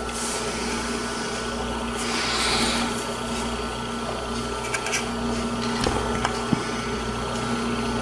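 Steady hum of running bench equipment with a few constant tones, under light handling rustles and a few small clicks, as a circuit board and tweezers are handled.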